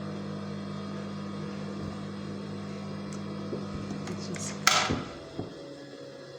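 Electric sewing machine motor running with a steady hum, then stopping with one sharp clack about four and a half seconds in and a smaller knock just after.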